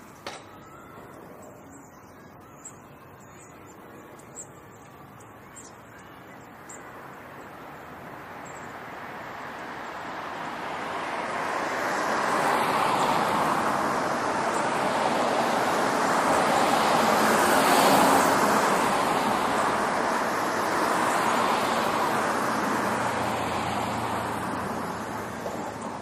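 A vehicle passing on a residential street: the tyre and engine noise swells slowly over about ten seconds, peaks, then fades away as it recedes.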